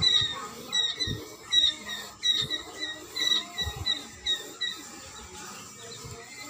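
Rapid high-pitched peeping from small animals, two or three short falling chirps a second, dying away about five seconds in, with a few soft knocks from handling.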